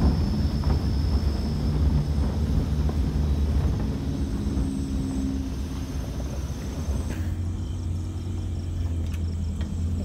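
Vehicle engine running with a steady low rumble as it drives over a rough dirt track, heard from inside the cab along with the rattle and crunch of the track. About seven seconds in, the rattling road noise eases while the engine rumble carries on.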